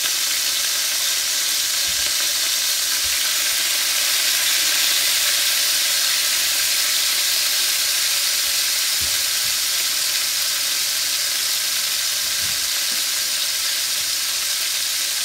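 Marinated chicken pieces searing in hot oil in a cast-iron skillet: a steady, even sizzle as the first side browns.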